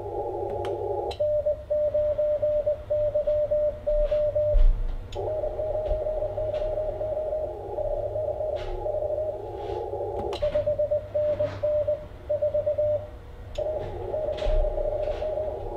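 Morse code (CW) from an Icom IC-7300 transceiver, a keyed tone of one steady pitch. Stretches of received Morse in a band of receiver hiss alternate with two stretches of the rig's own transmit sidetone, where the hiss cuts out: one from about a second in to about five seconds, the other from about ten to thirteen seconds. This is a contest exchange of call sign and report. Faint clicks sound here and there.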